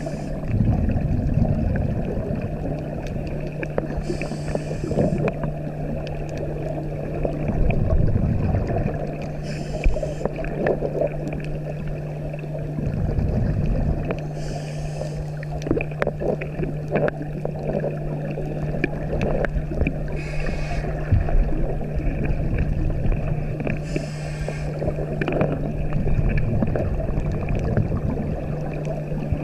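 Scuba diver breathing through a regulator underwater, heard through a helmet camera's housing: a hiss on each inhalation about every five seconds, with a gurgling rush of exhaled bubbles between them, over a steady low hum.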